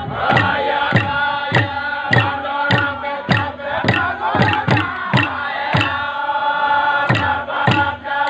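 Group of men singing a traditional dance chant together over a steady struck beat, about three beats every two seconds.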